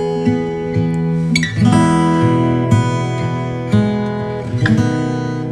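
Background music: a guitar strumming chords, changing every second or two.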